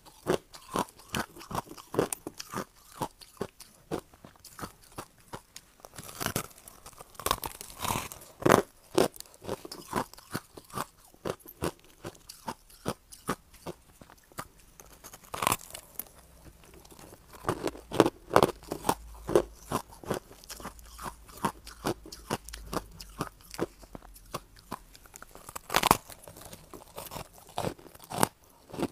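Crushed ice being bitten and chewed: a continuous run of hard, sharp crunches, several a second, with louder bites in clusters.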